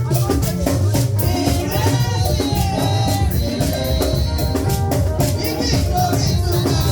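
Lively church band music with a drum kit and shakers keeping a steady beat, and voices singing along.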